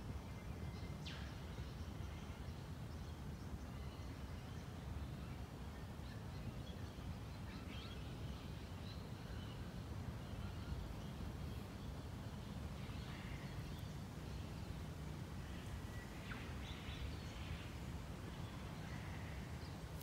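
Scattered faint bird calls over a steady low background rumble.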